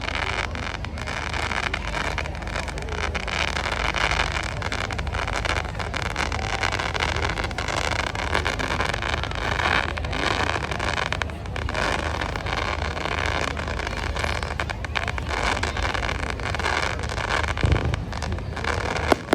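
Steady rumble of wind buffeting the microphone over outdoor crowd noise. Near the end come a couple of sharp bangs, the first fireworks going off.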